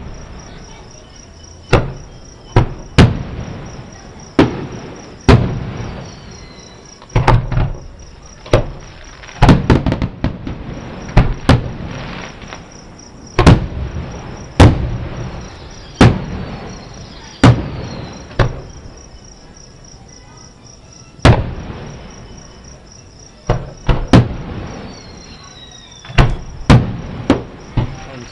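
Aerial fireworks shells bursting about a mile away: some twenty sharp booms at irregular intervals, some in quick pairs or clusters, each trailing off in a rumbling echo. A steady chorus of crickets runs underneath.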